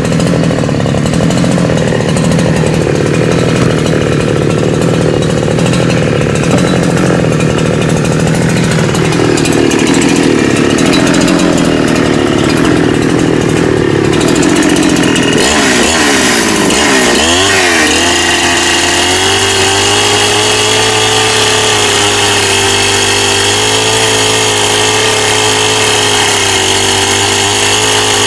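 Chainsaw cutting firewood under load for about fifteen seconds, then its engine pitch swings up and down and it settles into a steady unloaded run.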